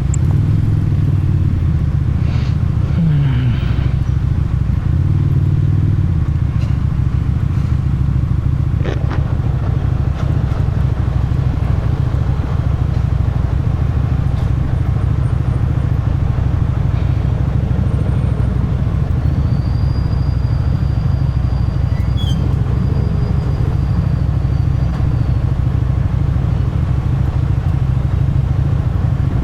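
Motorcycle engine and exhaust running steadily while riding. The engine note shifts in the first few seconds, then holds steady.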